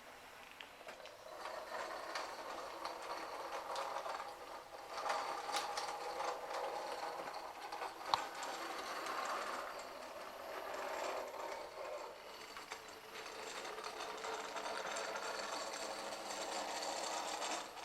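Model railway locomotive running along the track: the whirr of its small electric motor and gears, rising and falling in level as it moves, with one sharp click about eight seconds in.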